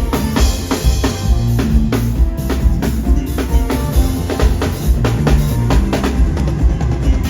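Live pop band playing an instrumental passage, with the drum kit's kick and snare keeping a steady, driving beat over bass and keys.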